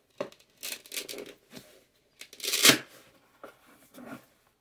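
A mailing envelope being handled and torn open: a run of short rustles and crinkles, with a longer rip about halfway through that is the loudest sound.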